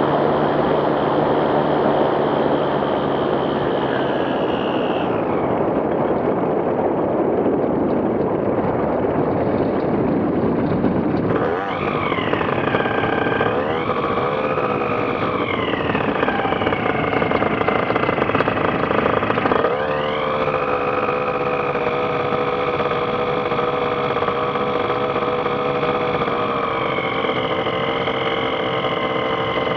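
TrueLite ultralight aircraft's engine and propeller running under changing throttle: the pitch drops about five seconds in, wavers up and down for a while, rises sharply about twenty seconds in, then holds steady.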